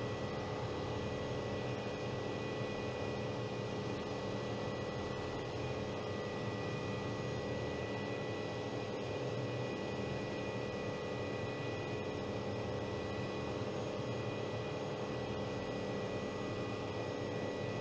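Single-engine helicopter heard from inside the cockpit while hovering and descending vertically: steady engine and rotor noise with a constant high whine.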